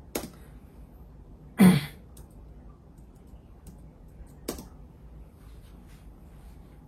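Two sharp clicks and, between them, one louder knock about a second and a half in, against faint room hiss.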